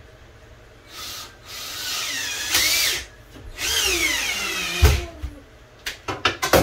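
Power drill driving screws through the cabinet into the wall studs: the motor whine rises and falls over a few long trigger pulls, with a sharp knock about five seconds in, then a run of short, quick bursts near the end.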